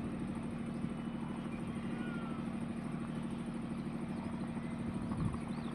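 Open-air ambience: a steady low hum under an even background noise, with a few faint short high chirps near the end.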